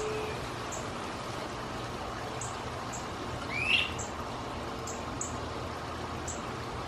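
Great crested flycatcher giving a single loud, rising whistled 'wheep' call about three and a half seconds in. Faint short high ticks come and go in the background.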